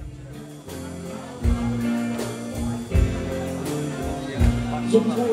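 Live band playing the opening of a classic Khmer song: held electric-keyboard chords over a deep beat that hits about every second and a half.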